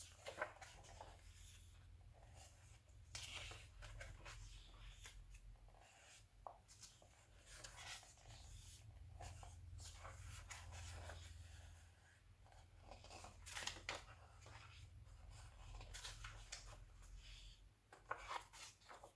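Faint, irregular rustling of glossy magazine pages being handled and turned, over a steady low hum.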